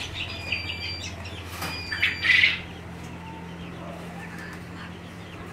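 Caged chickens calling: high chirps, then one short, loud squawk about two seconds in, over a steady low hum.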